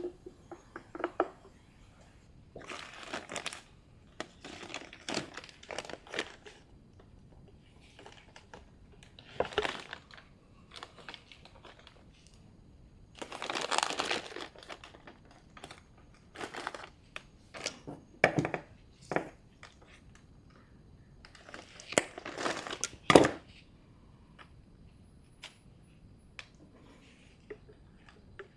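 Intermittent rustling, crinkling and scraping of hands handling small parts and fuel line while the hardened fuel line on a chainsaw is replaced, with a sharp click near the end.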